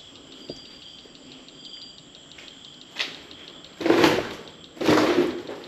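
Two loud crunching scrapes about a second apart, late on, of footsteps treading through splintered wood and debris on the floor, over a faint steady chirping of crickets.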